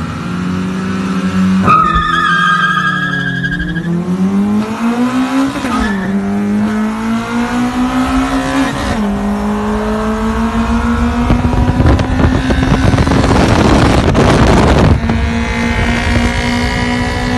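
Toyota RunX RSi's four-cylinder VVTL-i engine revving hard through the gears, screaming on its high-lift cam. The note climbs and then drops sharply at each shift, about two, six and nine seconds in, and then pulls up slowly through a long higher gear. A brief high squeal comes near the first shift, and a loud rushing noise runs through the middle of the last pull.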